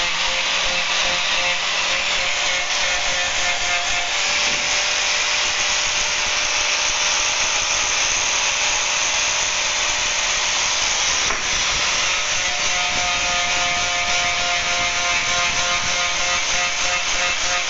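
Electric angle grinder with a sanding disc running continuously against a wooden frame's corner, rounding it over: a steady motor whine under the noise of the disc abrading the wood.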